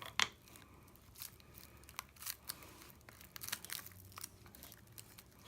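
Faint crinkling and scattered small clicks of a piece of plastic being pressed down onto broken powder eyeshadow in its pan.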